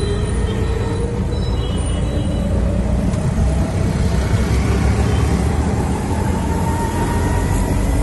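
Auto rickshaw's small engine running under way, heard from inside the open passenger cabin, with steady road and traffic noise and a faint whine that rises in pitch as it picks up speed.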